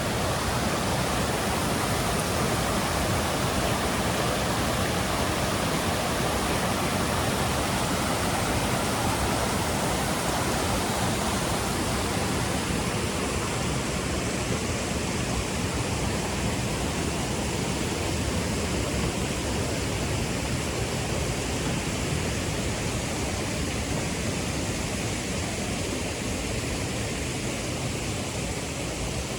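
Steady rush of water from a jungle stream and cascade, an even hiss with no breaks; about halfway through its tone shifts slightly toward a thinner, higher hiss.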